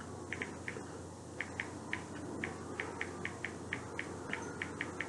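Light, irregular tapping clicks, about three to four a second, as of fingers tapping on a phone screen.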